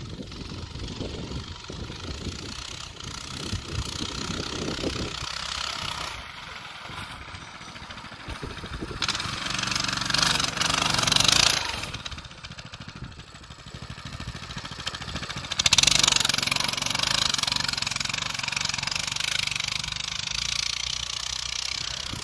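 Coleman BT200X minibike's small single-cylinder engine revving as it rides through snow. It swells loudest as it passes close about halfway through, jumps up sharply again a few seconds later, then slowly fades as the bike rides away.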